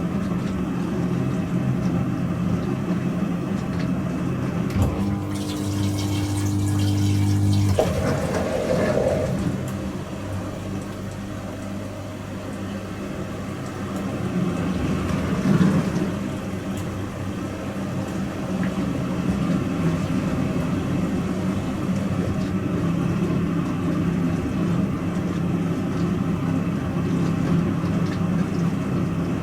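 Pro Action PRSLG96W slimline dishwasher running mid-cycle: a steady pump hum with water swishing inside. About five seconds in, a click is followed by a louder hum for a few seconds before the machine settles back to its steady running.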